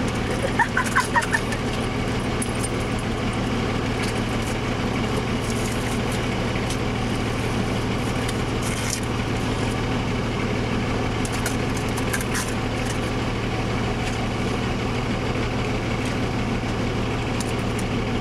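Car engine idling, a steady low hum heard from inside the cabin, with a few short, sharp sounds about a second in.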